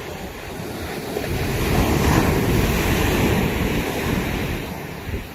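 Ocean waves: one wave builds, breaks and washes in, growing louder from about a second in and dying away near the end, with wind rumbling on the microphone.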